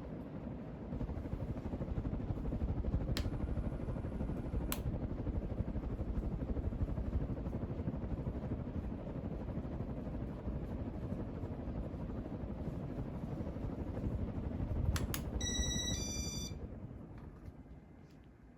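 Casablanca Zephyr ceiling fan running with a steady rush of air and motor noise. Two short clicks come about 3 and 5 seconds in, then a quick string of short beeps near the end, after which the fan sound fades away as it slows.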